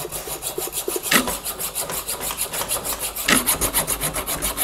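Hacksaw cutting through a metal axle rod: quick, even back-and-forth rasping strokes, with a couple of heavier strokes along the way.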